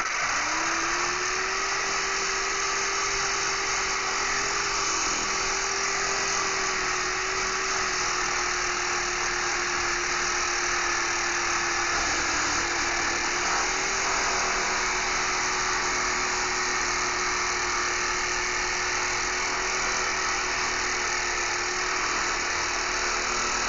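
Corded reciprocating saw starting up and running steadily at one constant motor pitch, its blade cutting through the metal fastenings and hurricane bracket that hold a deck board to the house wall.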